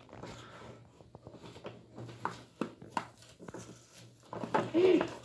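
Cardboard and plastic toy packaging being pulled and torn open by hand, with scattered crinkles and sharp clicks. A short rising-and-falling voice sound comes near the end.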